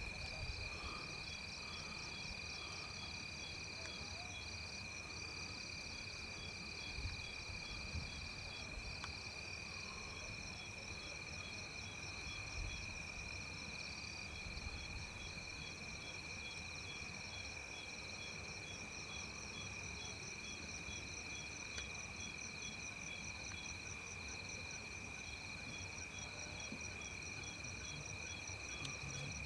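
Night chorus of crickets and other insects: a steady high-pitched trill with several faster, rapidly pulsing chirps layered above it, over a faint low rumble.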